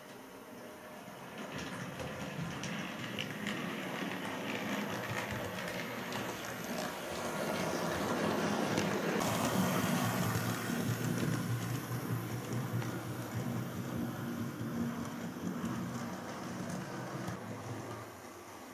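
Model train running along the layout track, its motor and wheels making a steady rumble. The rumble grows louder toward the middle as the train passes close, then eases off and drops away sharply near the end.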